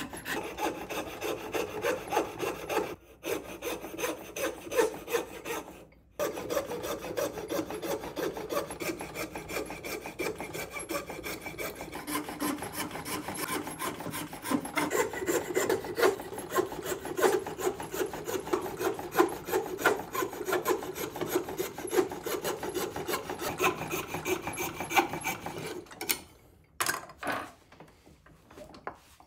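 Coping saw cutting a curved line through a maple board in rapid, rasping back-and-forth strokes. It pauses briefly twice early on, then stops near the end, followed by a couple of light knocks.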